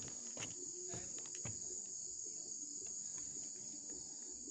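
Outdoor insect chorus at dusk: a steady high-pitched trilling that holds unchanged, with a few faint clicks in the first second and a half.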